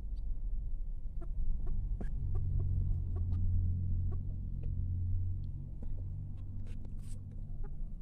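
A hen clucking softly in short, scattered notes. Under it runs a low rumble that swells from about two seconds in and eases off after about five.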